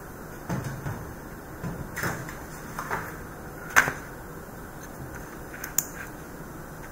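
A handful of scattered knocks and clicks, handling noise close to the microphone as someone moves about right at the desk; the sharpest, loudest click comes about four seconds in and a shorter one near the end.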